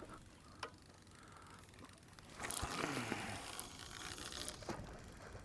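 A fishing line being cast out with a big bait. After a single click, there is a faint whoosh and hiss of line running out for about two seconds, with a few small ticks.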